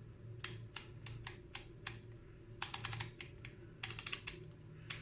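Sharp clicks from the stepped grind-adjustment dial of a Xeoleo 45 mm hand coffee grinder being turned back to its zero setting. Single clicks at first, then quick runs of several clicks.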